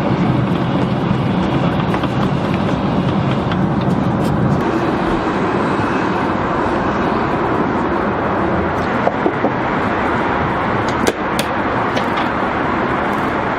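Steady roar of a jet airliner's cabin in cruise flight. The low hum shifts about four and a half seconds in, and a few short clicks come about two-thirds of the way through.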